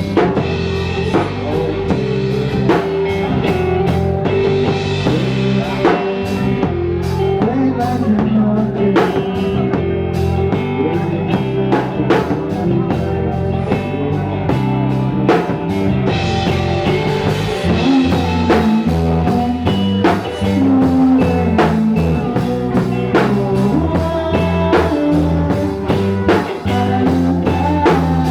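Rock band playing live: drum kit, bass and guitars, with steady drum hits under sustained guitar notes.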